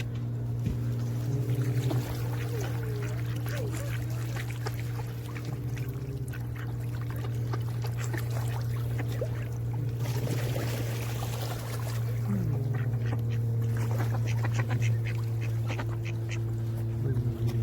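Ducks quacking, many short calls overlapping, over a steady low hum.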